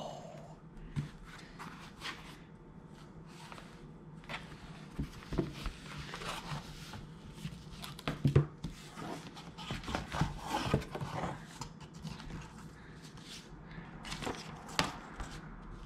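A cardboard mailer box being opened by hand: scattered scrapes, taps and rustles of cardboard flaps and paper packing.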